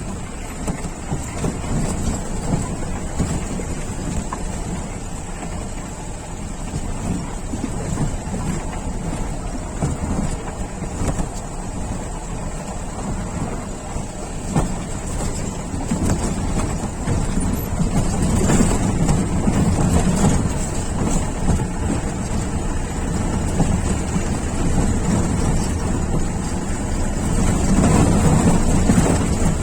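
A Jeep driving over a rough off-road track: the engine runs under rough, uneven noise, with many small knocks and rattles. The noise swells louder about two-thirds of the way through and again near the end.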